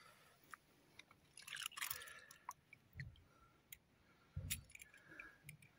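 Faint wet handling of a metal oil lantern in a plastic tub of rinse water: small metal clicks and taps, a short swish of water about two seconds in, and a couple of soft knocks against the tub.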